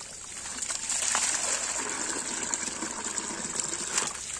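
Sand-filter backwash water gushing out of a corrugated waste hose and splashing onto paving slabs, a steady rush that grows louder about a second in. The filter is being flushed clean, and the water is still running until it comes out clear.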